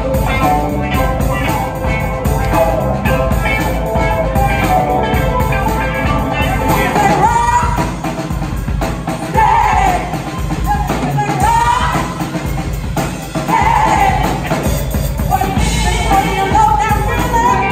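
Live band playing: a DW drum kit and electric bass keep a steady groove, with a singing voice carrying a gliding melody over it from about halfway through.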